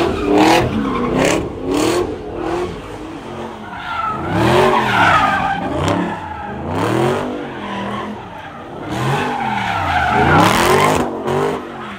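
A car engine revs up and falls back over and over, its pitch sweeping up and down every two to three seconds. Under it the tyres squeal and skid, as when a car spins donuts.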